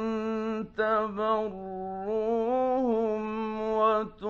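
A man's voice reciting the Quran in a slow, melodic chant, holding long ornamented notes with a wavering pitch. It breaks off briefly under a second in and again near the end.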